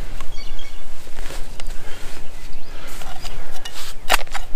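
Hand digging in lawn soil: gloved hands and a narrow spade scraping and cutting through dirt and dry turf, with a sharp strike of the spade into the ground near the end.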